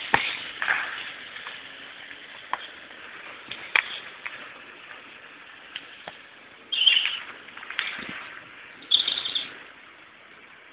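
Birds chirping, with two short bursts of high calls about seven and nine seconds in, over a faint outdoor background with scattered light clicks.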